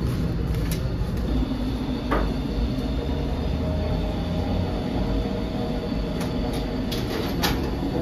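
Steady low rumble of a working bakery, with a handful of sharp metal clicks and scrapes as the baker's long hook and rod work loaves out of the clay tanoor oven.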